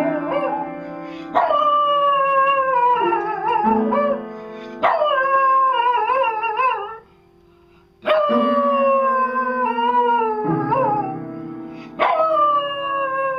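A dog howling at an upright piano while pressing its keys with a paw: a string of long howls that slide downward and waver, each beginning with a struck note, over low piano notes that ring on beneath. The howling stops briefly past the middle and then resumes.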